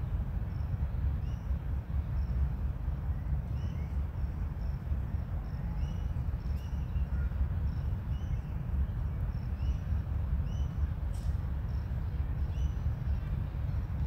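Outdoor ambience: short high chirps repeating irregularly, about every half second, over a steady low rumble. Two faint clicks stand out, one about halfway through and one later on.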